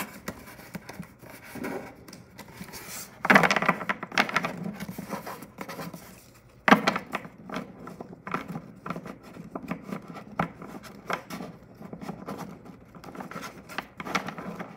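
Pokémon trading cards being handled and sorted on a table: paper scraping and rustling with many small clicks, and two louder bursts about three and seven seconds in.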